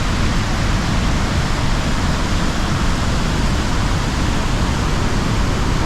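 Waterfall's steady, loud rush of falling water, heaviest in the low rumble.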